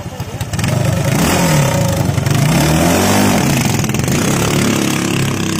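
Small engine of an outrigger racing boat revving up hard about half a second in as the boat launches and pulls away, its pitch wavering up and down, growing a little fainter near the end as the boat moves off.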